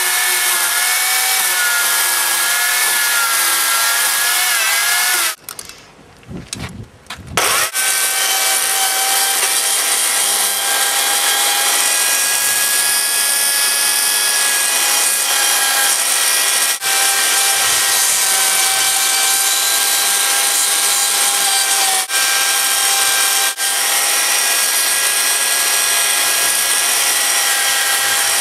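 Electric chainsaw cutting through a jarrah log, its motor whining at a pitch that sags and wavers under load. It stops for about two seconds some five seconds in, then runs steadily again, with three split-second let-offs later on.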